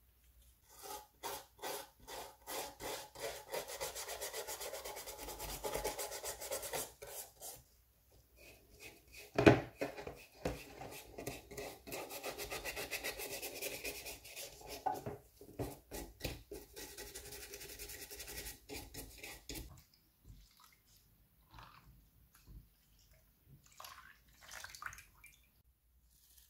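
Toothbrush scrubbing a metal signal-lamp housing in a plastic tub, lifting paint softened by paint remover: quick back-and-forth strokes in two long runs, with one sharp knock between them. Near the end only a few scattered light taps and rubs.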